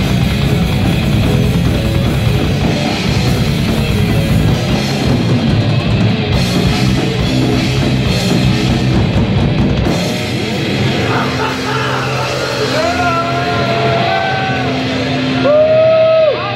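Rock band playing heavy, distorted music live, with drums, bass and guitars. About ten seconds in the drums drop out and long notes bend up and down in pitch over a held low note until the sound cuts off.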